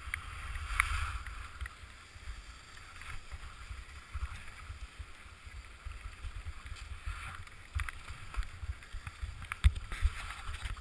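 Skis sliding on snow with a steady hiss and wind rumbling on the microphone as the skier glides in and slows. A few sharp clicks sound near the end.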